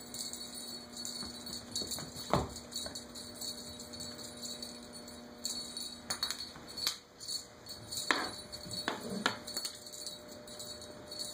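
Light, steady high-pitched jingling, like a small bell, with a few soft thumps, the clearest about two seconds in and others between six and nine seconds.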